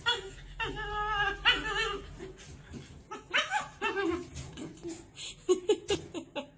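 Dog whining in a series of short, high, wavering cries.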